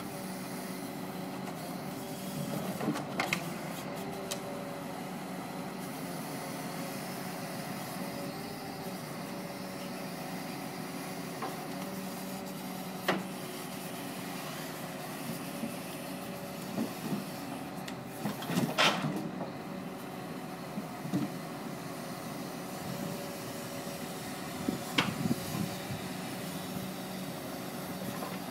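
Lorry-mounted timber crane running steadily on the truck's engine-driven hydraulics as its grab unloads logs, with several hard wooden knocks as logs are dropped and settle on the pile, the loudest about two thirds of the way through.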